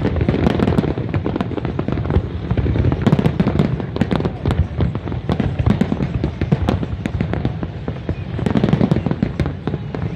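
Fireworks display: a dense, continuous string of bangs and crackling bursts, heaviest again near the end.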